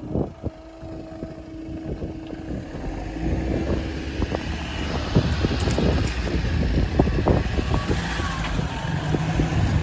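Road vehicles driving over a railway level crossing just after the barrier has lifted: a knock as the barrier arm comes up, a steady hum for about the first four seconds, then cars and a van approach and pass close. The tyres knock over the rails, and the sound grows louder to the end.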